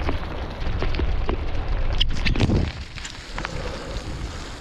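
Wind rumbling on the microphone of a bicycle ridden through rain, with scattered crackling clicks. The rumble eases about halfway through.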